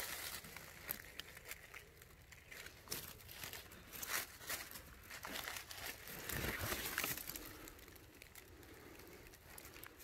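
Dry fallen leaves rustling and crackling, with scattered small snaps and clicks, as a gloved hand works among the leaf litter.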